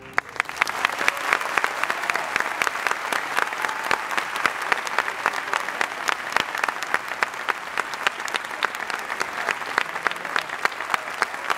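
Audience applauding, many hands clapping, building up within the first second and then holding steady.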